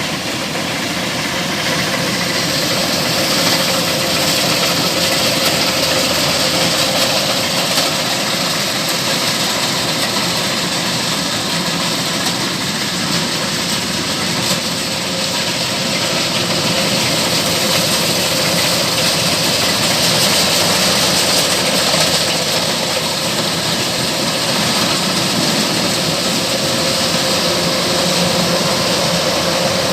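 Kubota rice combine harvester running steadily: a constant loud engine and machinery drone with a steady mid-pitched tone through it.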